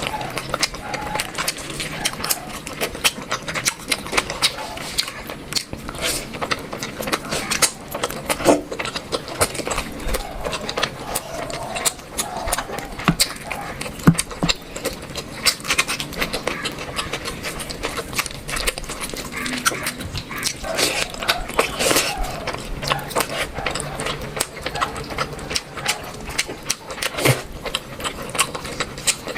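A person chewing and smacking their lips while eating, with rapid, irregular wet clicks several times a second.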